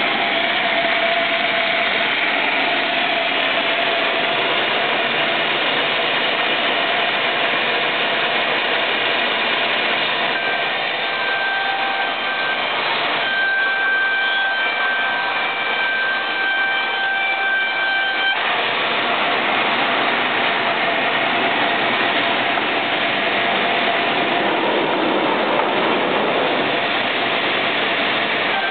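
Sawmill band resaw running steadily while a board is fed through the blade. Several thin high tones stand out over the machine noise for several seconds midway.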